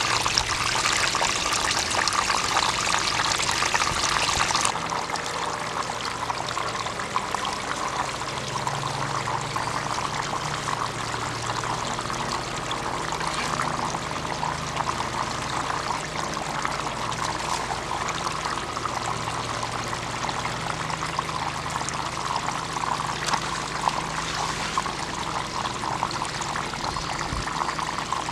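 Water running steadily down a sluice box and spilling off its end into a tub: an even splashing rush that steps down in level about five seconds in, then holds steady.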